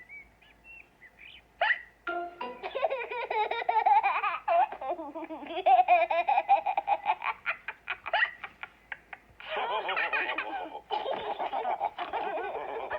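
Cartoon characters' voices laughing together, a long stretch of giggles and belly laughs that starts about two seconds in, with music underneath.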